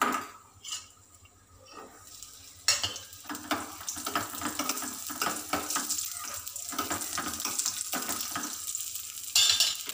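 Cashews and raisins frying in ghee in a small steel pan, sizzling, with a metal spoon clinking and scraping against the pan as they are stirred. Quiet at first; the sizzle starts up about three seconds in.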